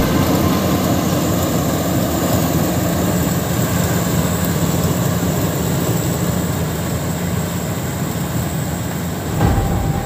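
Rice combine harvester running steadily while it harvests: its engine and threshing gear make a dense mechanical rumble with a thin, steady high whine, slowly getting quieter as the machine moves away.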